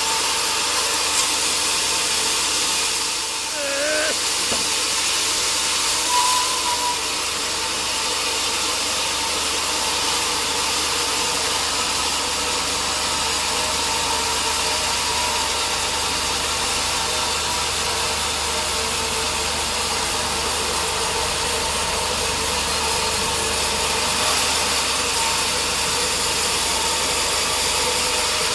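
Sawmill machinery running steadily, a constant engine-like hum with an even hiss over it.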